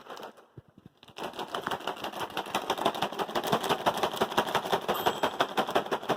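A bag of microwave popcorn giving a dense, rapid crackle of many small sharp clicks. It starts after a single click about a second in.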